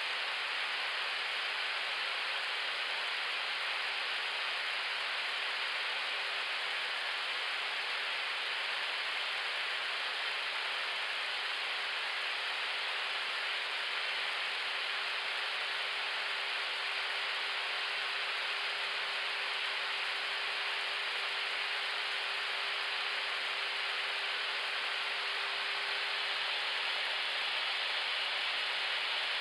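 Airbus A321neo flight deck noise in the climb: a steady, even rush of noise with a faint constant hum beneath it.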